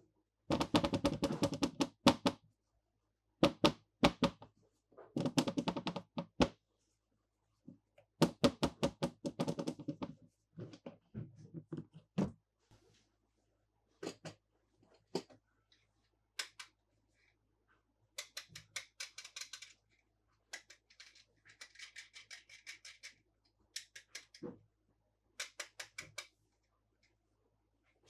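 Toy packaging and plastic toy cars being handled: bursts of rapid clicking and tapping, with softer crinkling of plastic or paper in the later part.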